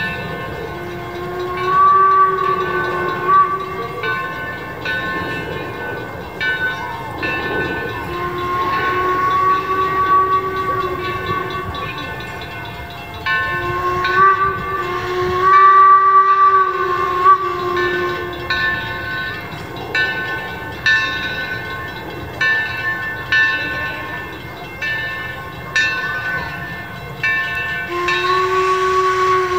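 Steam whistle on the Torch Lake, an 1873 Mason Bogie steam locomotive, sounding several long, steady blasts. A steady rhythmic beat from the running train lies underneath.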